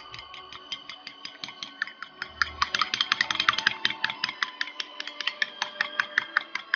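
Metal spoon clinking rapidly against a ceramic bowl while beating eggs, about six to seven clinks a second, louder in the middle.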